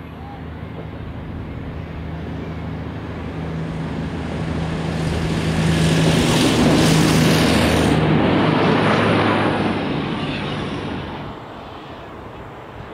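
V/Line VLocity diesel multiple unit passing at speed: a steady low diesel engine drone grows as it approaches, a loud rush of wheels on rail and air peaks about six to nine seconds in as it goes by, then it fades away.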